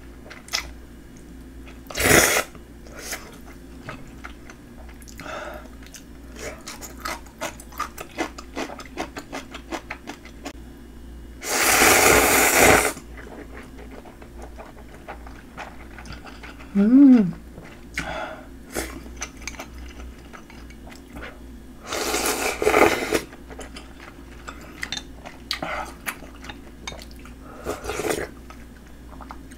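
Close-up eating sounds of a person slurping instant ramyeon noodles in broth and chewing. There are four slurps, the longest lasting over a second about a third of the way in and a double one about three quarters in, with wet chewing clicks between them.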